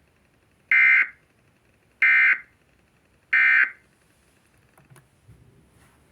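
Emergency Alert System end-of-message signal: three short, identical bursts of harsh digital data buzz, about 1.3 seconds apart, marking the end of the severe thunderstorm warning broadcast.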